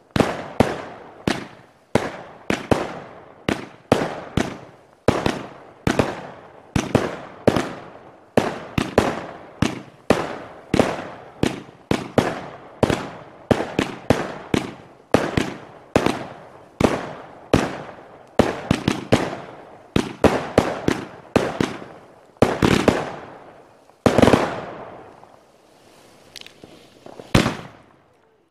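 Fireworks display: aerial fireworks bursting in a rapid, nearly continuous run of bangs, each echoing away. A few heavier bursts come near the end, then the bangs thin out and grow quieter.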